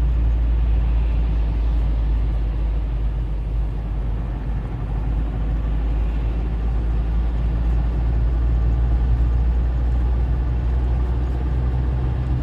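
Car engine running with a ticking sound that comes only when the accelerator is pressed and goes away when it is lifted, growing as the throttle is opened.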